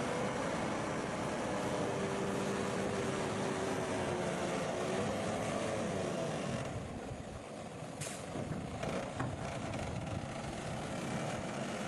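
Heavy construction machinery and trucks running, a dense engine drone with a few tones that waver slightly in pitch. The higher noise falls away about seven seconds in, and a short sharp sound comes about a second later.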